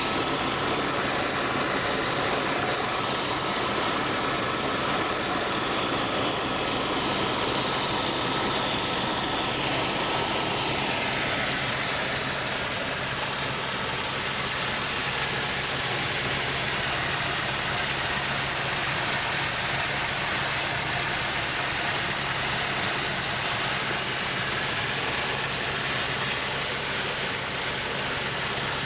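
Steady engine noise heard inside a small sightseeing aircraft in flight, with a low hum. About ten seconds in, a higher tone slides down in pitch.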